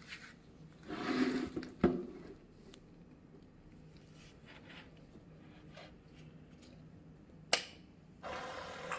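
Faint handling rustle and a couple of sharp switch-like clicks over a low steady hum, then about eight seconds in a steady hiss of flowing water begins as the EDM machine's water pump is started.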